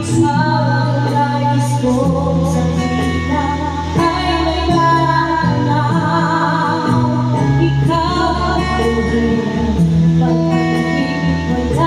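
A woman singing into a microphone over amplified instrumental backing music, with long held notes over a steady bass line.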